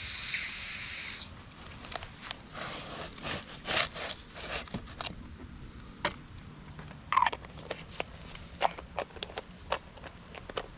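A bulk caulking gun being loaded with sealant from a pail: a steady hiss while the tube is drawn up that cuts off about a second in, then scattered scrapes, rubs and clicks as the tube is pulled off the follower plate and its plastic nozzle is fitted.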